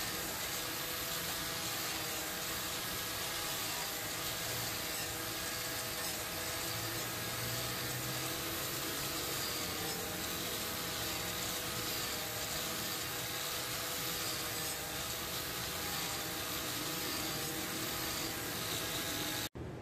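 Electric angle grinder with an abrasive disc grinding a steel knife blade made from a file: the motor runs steadily, with the hiss of the disc on the steel. The sound breaks off abruptly just before the end.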